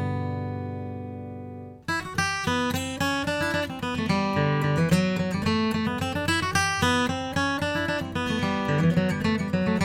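Gibson J200 Koa jumbo acoustic guitar, with a flamed koa back, being played. A chord rings and fades, then stops abruptly just before two seconds in. A quick run of separately picked notes over bass notes follows.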